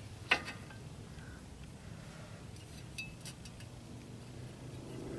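Brake pad hardware giving a few light metallic clicks as the pad is pushed into a tight-fitting caliper bracket: one sharp click near the start, then a cluster of small clicks past the middle, over a faint steady low hum.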